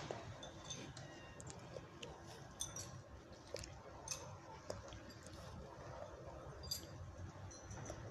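Faint, scattered crackling and clicking of dry fallen leaves.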